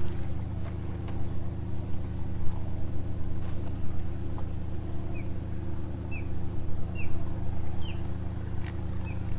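A steady low rumble that rises and falls in loudness, with a bird giving about five short, high chirps roughly a second apart in the second half.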